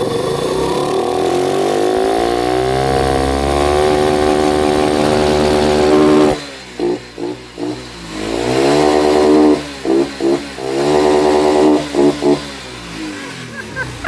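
Shineray 50cc motorcycle engine, breathing through an improvised intake made from an oil can on the carburettor, revved up with a rising pitch and held at high revs. It breaks three times into rapid on-off stutters as it hits the rev cut, then drops back near the end.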